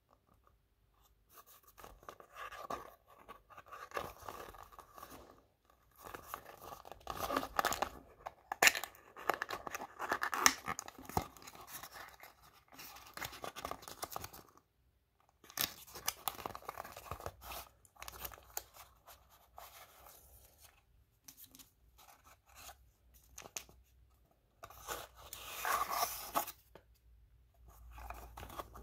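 Hands opening a cardboard condom box and pulling out its contents: cardboard flaps, foil condom wrappers and a paper leaflet rustling and crinkling in irregular bursts with short pauses between.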